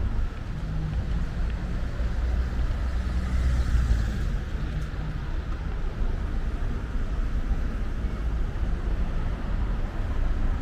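Steady road-traffic noise of a busy city street, a low, even drone of passing vehicles with no distinct single event.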